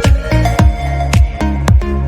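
Electronic dance background music with a steady kick-drum beat and a bass line.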